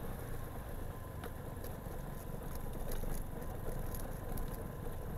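Vespa Primavera scooter running at low speed along a dirt forest track, its engine buried under a low rumble of wind and road noise on the onboard microphone. A few light clicks stand out here and there.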